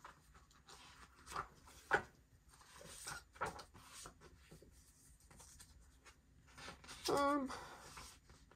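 Pages of a book being leafed through: scattered soft paper rustles and taps. About seven seconds in comes a brief hum of a person's voice.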